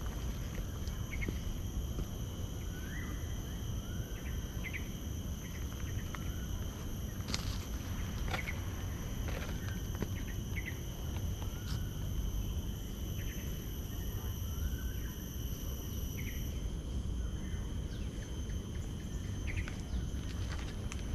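Tropical garden ambience: an insect chorus holding several steady high tones, one of which stops about two-thirds of the way through, with a bird giving short rising chirps every second or so over a steady low rumble.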